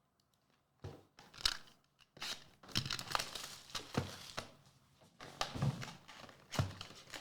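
Trading card packaging being torn open and crinkled by hand: a run of sharp crackles and rustles that starts about a second in.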